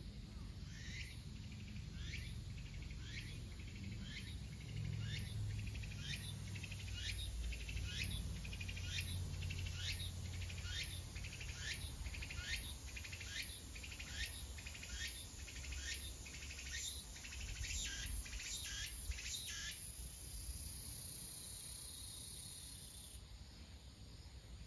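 A cicada singing: a long run of short, falling notes about twice a second that speeds up and runs into a steady high buzz for a few seconds, about twenty seconds in. A low rumble runs underneath.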